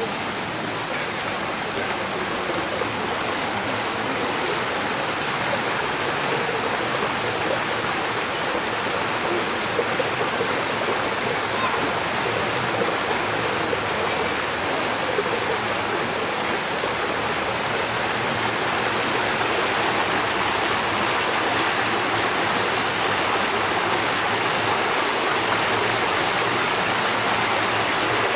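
Water of a shallow stream running and babbling steadily, growing a little louder in the second half.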